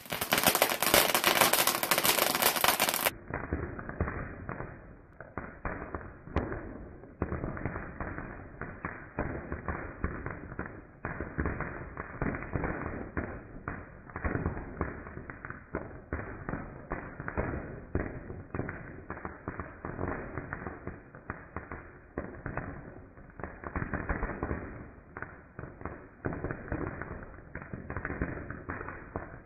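Ground fountain firework spraying sparks with dense, continuous crackling, many sharp pops a second. It opens with about three seconds of a louder, brighter noise before the crackling settles to a steady level.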